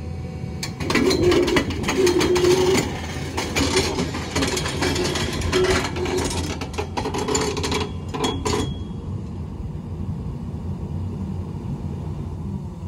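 Hydraulic excavator's diesel engine working, with a loud rattling clatter for the first eight seconds or so, then settling to a steady low rumble.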